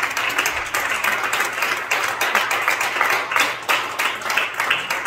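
Congregation applauding: many hands clapping together.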